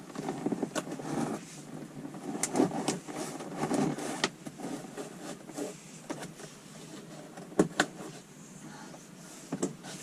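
Rustling handling noise as a camera wire is pushed up into a car's headliner and interior trim, with several sharp plastic clicks and taps, the loudest a pair about three-quarters of the way through.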